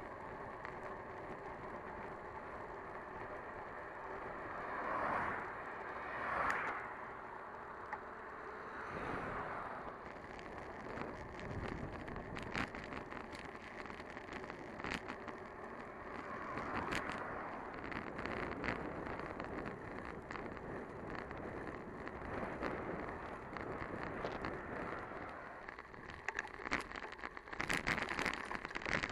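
Riding noise on a bicycle: steady rolling and wind noise on the microphone, with a few slow swells, then a run of rattling clicks near the end.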